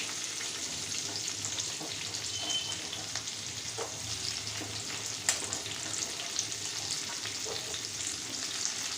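Square-cut onion with chopped garlic and green chilli sizzling steadily in hot oil in a pan, with occasional clicks of stirring and one sharp click about five seconds in.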